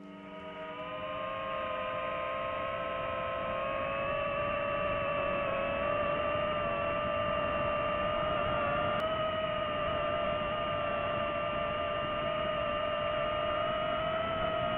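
DJI FPV drone's motors and propellers whining in flight: a steady hum of several tones over a rushing noise, rising a little in pitch in the first few seconds and then holding level.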